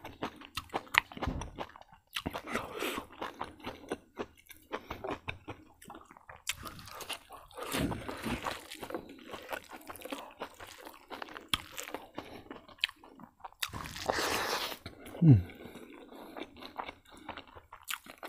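Close-up mouth sounds of a person chewing and crunching a hand-eaten mouthful of rice, kidney beans, meat and raw greens, with many small wet clicks. Near the end comes one short, louder voice sound that falls in pitch.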